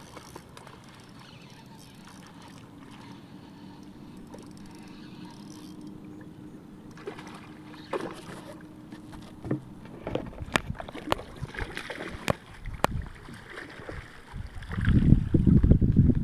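A hooked striped bass fighting on the surface on a calm river: quiet water at first, then sharp splashes from about ten seconds in, and loud, close thrashing and churning of water beside the pier near the end.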